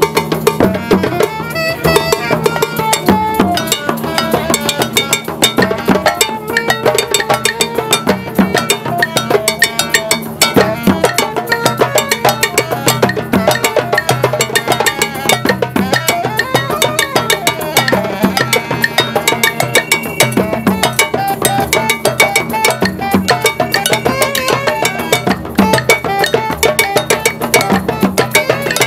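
Drum circle: many drums and other percussion playing together in a steady, dense rhythm.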